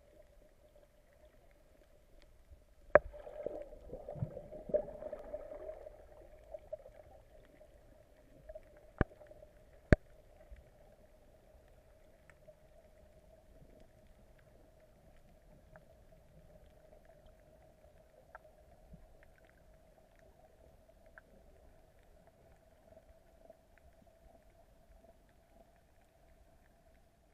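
Underwater sound heard through an action camera's waterproof housing: a burst of splashing and bubbles about three seconds in as the freediver goes under, then muffled stillness with a steady hum. A few single sharp knocks, the loudest near the start of the splashing and twice around nine to ten seconds in.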